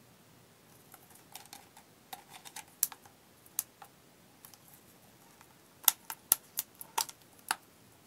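Irregular sharp clicks and taps of hard plastic and metal from a plastic water bottle being handled in an aluminium carabiner bottle holder with a plastic neck-ring clip. The loudest clicks come in a quick run of about six between six and seven and a half seconds in.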